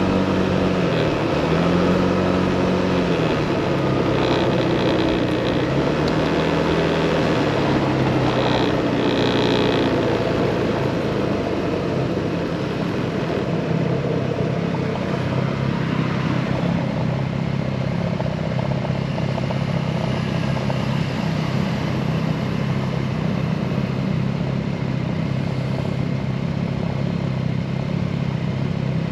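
Motorcycle engine running under way, its pitch rising and falling through the first ten seconds or so, then settling to a steady low note.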